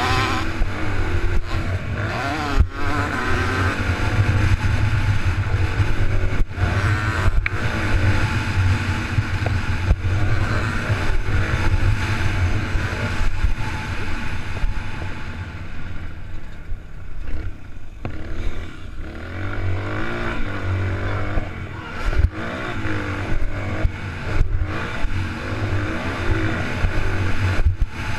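Motocross dirt bike engine, heard from an onboard camera, revving up and down repeatedly as the throttle is worked around the track, with wind noise and short knocks over the top.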